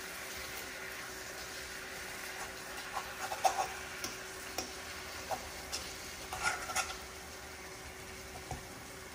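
Chicken pieces sizzling steadily in oily liquid in a nonstick frying pan. A utensil scrapes and clicks against the pan several times around the middle as the pieces are turned.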